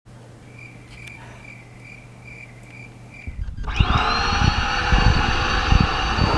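A vacuum cleaner switched on about three and a half seconds in: its motor spins up with a rising whine and settles into a loud, steady run with rushing air and low knocks as it is moved. Before that, a faint hum with soft, evenly spaced beeps, about three a second.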